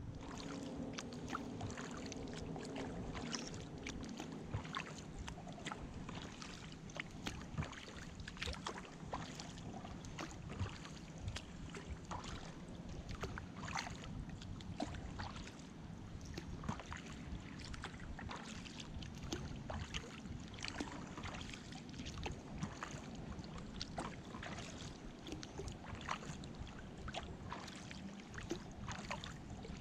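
Kayak being paddled on a calm river: the paddle dips and water drips and laps against the hull, with many small irregular ticks and splashes over a steady watery hiss.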